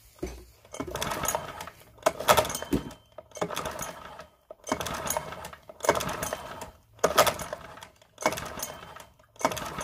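Recoil starter of a Parsun 4 single-cylinder four-stroke outboard pulled about eight times, roughly once a second; each pull is a short whirring rattle of the cord and the engine turning over. The engine is being cranked for a compression test, with a gauge in the spark plug hole and the fuel off, so it does not fire.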